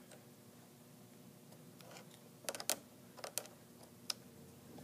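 A few faint, sharp clicks and snips, clustered from about two and a half seconds in to near the end: small scissors cutting thread tails that got caught under the sewing machine's needle at the start of the seam.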